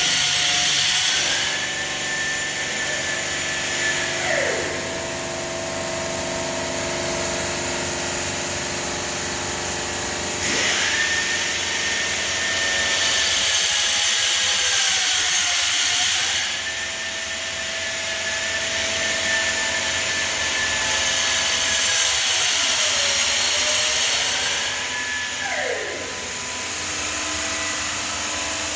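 CNC bridge saw cutting 20 mm granite: a steady machine whine that dips and recovers in pitch several times as the cut follows the curve, with a hissing, grinding layer that swells for a few seconds and fades, about three times.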